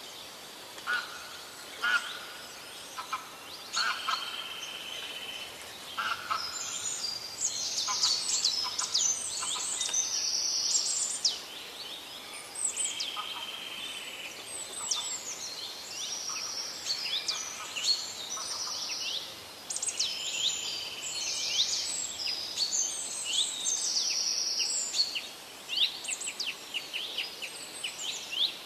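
A chorus of several songbirds singing: overlapping whistles, rapid trills and chirps, with a few scattered calls at first and busy, continuous song from about six seconds in.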